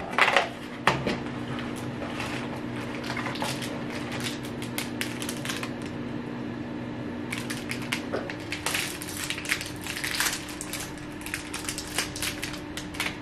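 Plastic snack-bar wrapper crinkling and crackling in the hands as it is opened, a long run of irregular crackles.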